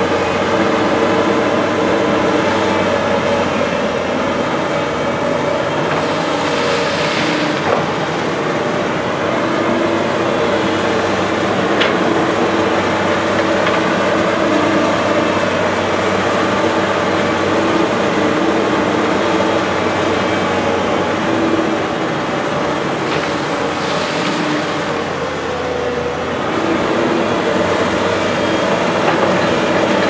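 A JCB crawler excavator's diesel engine runs steadily under load while its bucket digs into the hillside soil. There are two brief rushes of harsher noise, about 7 and 24 seconds in.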